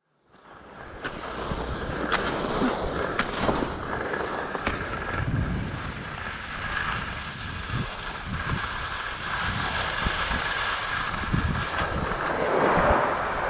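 Skis sliding and scraping over packed snow, with wind rushing over the microphone, fading in from silence at the start. A few sharp clicks come in the first few seconds.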